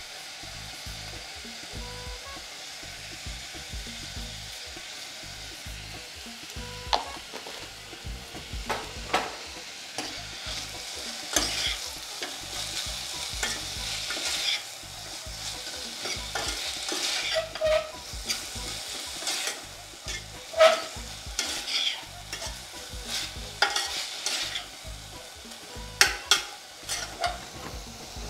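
Sliced onions sizzling as they fry in a pressure cooker pan. About seven seconds in, a steel spoon starts stirring them, clinking and scraping irregularly against the pot.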